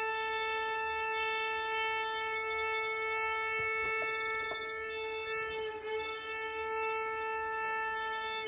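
Violin played by a beginner: one long bowed note held at a single pitch, with a brief dip about six seconds in. The tone comes out clean with the corrected bow hold.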